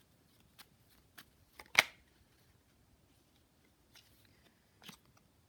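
Tarot cards being handled: a handful of light, scattered clicks and taps, the loudest a sharp snap about two seconds in.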